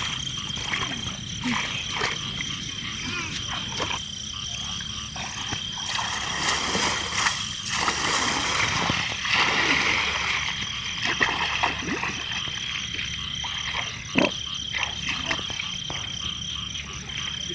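Frogs croaking under a steady high-pitched trill, with water splashing and sloshing as bamboo plunge baskets are pushed into shallow water. The splashing is heaviest about halfway through.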